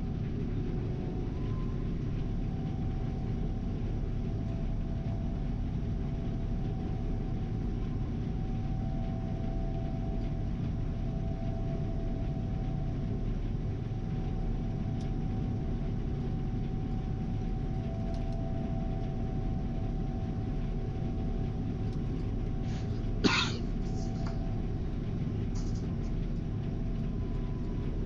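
Gleaner R72 combine running steadily while harvesting soybeans, a heavy low rumble with a steady hum over it. One short sharp click about 23 seconds in.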